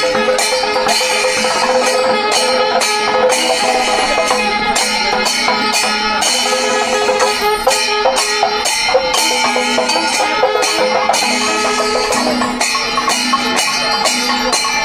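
Traditional percussion music with drums and clashing hand cymbals keeping a steady beat over held pitched tones.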